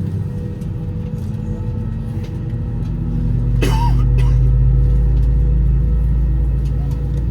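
Airbus A320 cabin noise on the ground: a steady low rumble with a droning hum from the aircraft's systems. The rumble swells about three seconds in, and a brief sharp sound comes just after.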